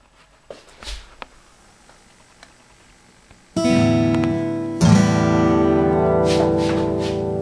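Acoustic guitar played through a Hartke AC75 acoustic amplifier: a few faint taps, then a chord strummed about three and a half seconds in and struck again a second or so later, left ringing and slowly fading.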